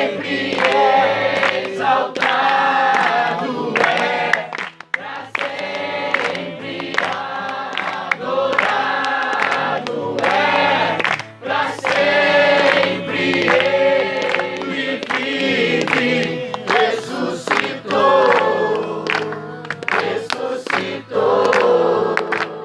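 A congregation singing a Portuguese worship song together, many voices held in long sung phrases.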